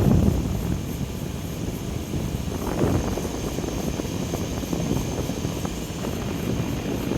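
Hampton Bay window air conditioner running, its fan's airflow buffeting the microphone into a loud, uneven rumbling rush that covers the unit's steady hum.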